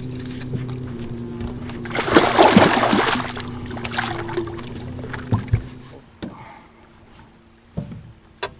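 Hooked zander thrashing and splashing at the water's surface beside the boat as it is reeled in, loudest about two seconds in. A steady low hum runs under it and stops about six seconds in, and a couple of sharp knocks follow near the end.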